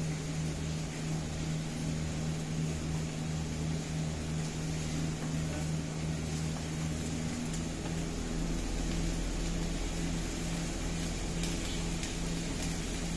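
Steady low mechanical hum of a commercial kitchen, from the exhaust hood fan and the lit gas wok burner; the low part of the hum shifts a little over halfway through, with a few faint clicks near the end.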